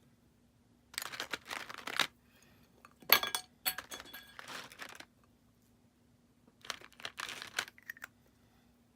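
Clear glitter slime squished and stretched by hands, giving crackly, popping clicks in three bursts of a second or two each.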